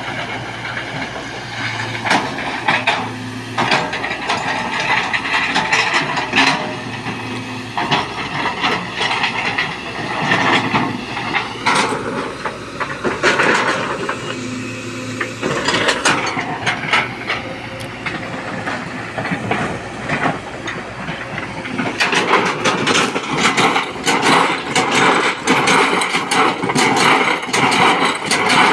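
Kobelco 220XD excavator running under load: a steady diesel engine hum with hydraulic hiss, broken by many sharp knocks and rattles from the working bucket and the material it handles.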